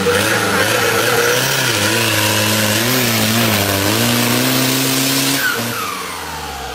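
Off-road Jeep's engine revved hard and held at high rpm while its big mud tyres spin and spray mud, the pitch wavering with the throttle. About five and a half seconds in the throttle is let off and the revs fall away.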